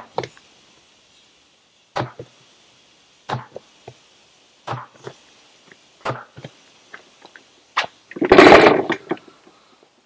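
A Maxxis Bighorn ATV tire on its rim being bounced on the ground to seat the bead evenly, thudding about every one and a half seconds. Near the end comes a much louder burst of noise lasting under a second.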